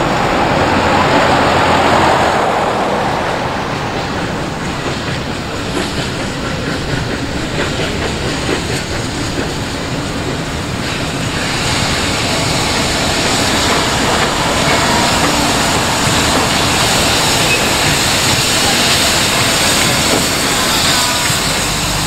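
A road vehicle passes close by, then the Victorian Railways K-class 2-8-0 steam locomotive K153 draws near hauling its passenger train. A steady hiss of steam and rail noise rises from about halfway through.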